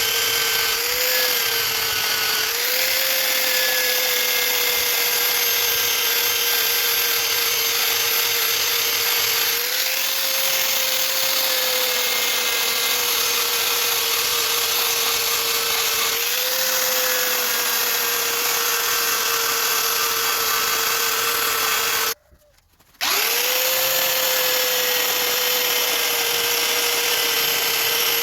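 Electric motor of a homemade belt sander running steadily, its pitch sagging briefly a few times as if under load. Near the end it cuts out for about a second, then comes back and rises quickly to speed.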